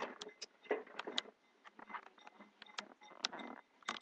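Handling noise: a scatter of short clicks and knocks with brief rustling, as kitchen items and the camera are moved about.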